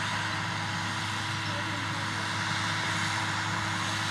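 John Deere tractor's diesel engine running steadily as it pulls a row-crop planter, heard as an even hum under a constant hiss.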